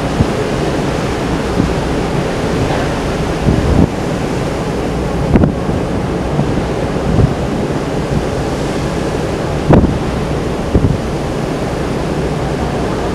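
Steady rush of the sea with wind blowing on the microphone, and several short gusts buffeting it.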